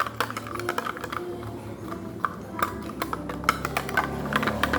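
Irregular clicking and tapping of stirring in a container as paint is mixed into slime ingredients.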